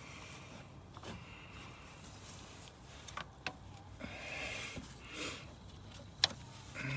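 Quiet hand-work noises: scattered faint clicks and rustles of tools and parts being handled, with one sharper click about six seconds in, over a faint steady hum.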